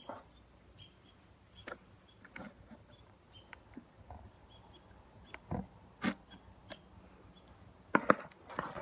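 Handling noise from a smartphone held while recording: scattered taps and knocks, as when it is tried and failed to be switched off, over a quiet background.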